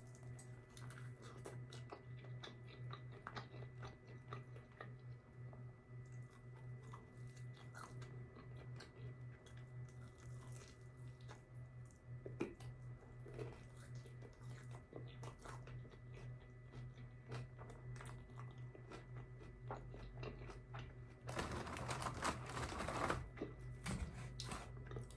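Close-miked chewing and biting of food, with many small wet clicks and crunches. About 21 seconds in, a louder crackly burst lasts roughly two seconds. A steady low hum runs underneath.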